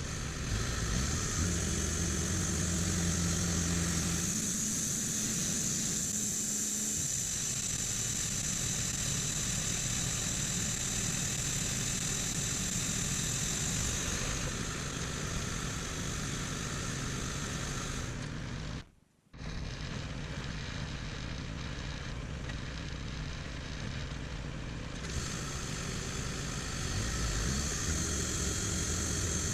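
Bandsaw sawmill running steadily: an engine sound with a high-pitched whine or hiss that drops away for a few seconds, then returns. The sound cuts out completely for a moment about two-thirds of the way through.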